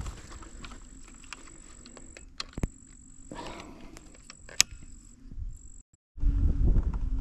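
An insect's steady high-pitched trill that breaks off a few times, over a quiet background with scattered faint clicks. About six seconds in, everything cuts out briefly, then a loud low wind rumble takes over.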